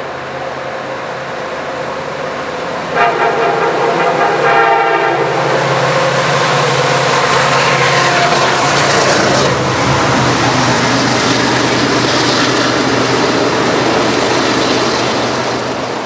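Norfolk Southern diesel freight locomotive horn (lead unit NS 1074): the tail of one blast at the start, then another blast of about two seconds beginning three seconds in. The locomotives' diesel engines then pass close by, followed by the steady roll and clatter of double-stack intermodal cars.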